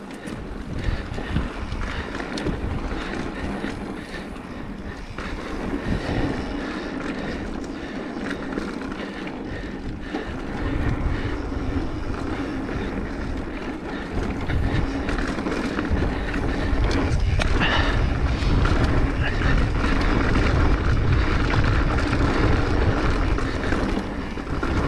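Mountain bike rolling along a dirt singletrack: knobby tyres on packed dirt and the bike rattling over the trail surface, with wind buffeting the action-camera microphone in a low rumble that comes and goes.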